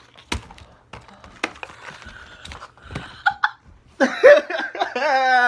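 A few scattered sharp clicks and knocks, then about four seconds in a person lets out a loud, drawn-out, wavering vocal cry, the loudest sound here.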